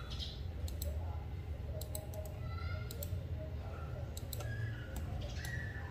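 Computer mouse clicking as lines are drawn in CAD software: several scattered single clicks, some in quick pairs, over a steady low hum.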